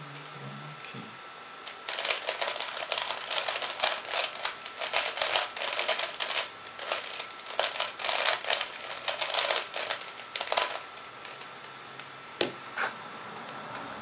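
3x3 Rubik's cube being turned quickly by hand: a dense run of plastic clicks and rattles from the layers for about nine seconds, stopping short, then two single sharp clacks.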